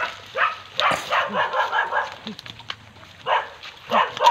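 A dog barking repeatedly: a quick run of barks about a second in and another run near the end.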